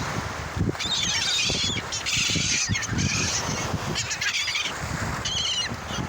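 A flock of gulls crying and squawking, several calls overlapping in a run from about a second in to three seconds, then one more short call near the end.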